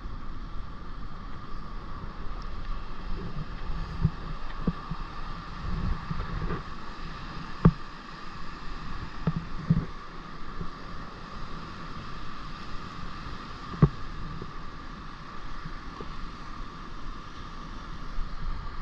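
Wind rumbling and hissing on the microphone, with scattered low knocks and two sharp clicks about six seconds apart.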